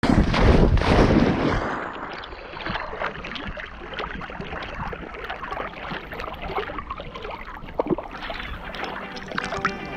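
Water splashing and sloshing around a dog-harness-mounted action camera as a dog swims in a river, loudest in the first second and a half, then a steady wash with small splashes. Music comes in near the end.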